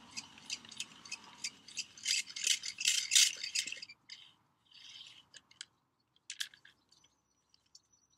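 Pocket Dipper's hand-held tape reel clicking as its tape is paid out to lower the probe down a well. The clicks come at about four a second for the first four seconds, then become a few scattered clicks.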